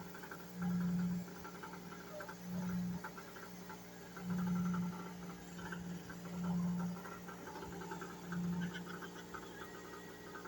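A motor on a fishing boat running steadily, its low hum swelling louder about every two seconds, with faint crackling over it.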